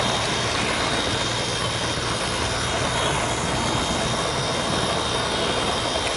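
Märklin model train running on its track, heard from a camera riding on one of its wagons: a steady whirring of motor and wheels with a high whine over it.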